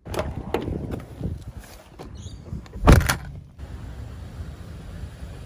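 A car door is unlatched by its outside handle and worked with clicks and knocks, then slams shut with a loud thud about three seconds in. Steady low background rumble follows.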